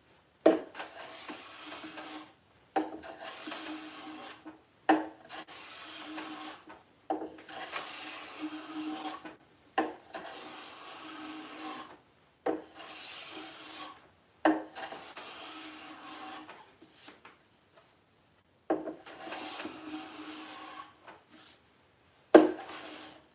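Hand plane shaving down the side of a wooden drawer to fit it to its opening. There are about nine strokes, each starting with a sharp bite and running a second or two as a hissing cut, with a longer pause about three-quarters of the way through.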